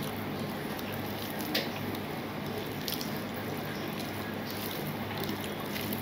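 Fingers mixing and pressing rice with curry on a steel plate: soft wet squishing with a few small ticks. A steady low hum runs underneath.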